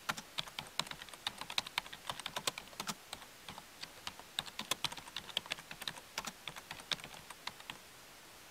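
Typing sound effect: quick, irregular key clicks, several a second, that stop shortly before the end.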